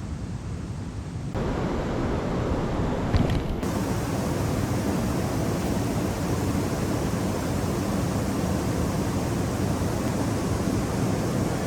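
Steady rush of river water pouring over a dam. It turns louder and fuller about a second in, with one brief knock around three seconds in.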